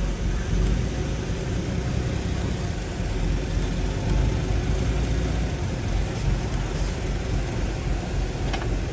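Heavy diesel engine of earthmoving machinery running steadily with a deep rumble. A faint click or two comes near the end.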